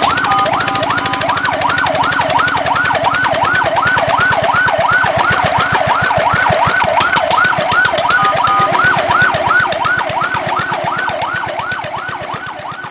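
Fire truck siren in fast yelp mode, sweeping up and down about three times a second, briefly switching to a steady two-note tone at the start and again about two-thirds of the way through. It fades away near the end.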